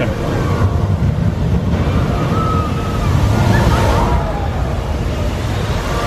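Artificial waterfall pouring down rockwork into a pool: a steady rush of falling water.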